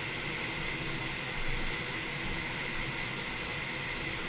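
Hot air rework station blowing: a steady hiss of air with a high, even whine, heating a laptop motherboard connector to reflow its solder.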